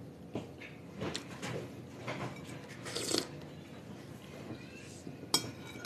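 A person eating bean soup from a metal spoon: quiet chewing and slurping, with a single sharp clink of the spoon on the bowl near the end.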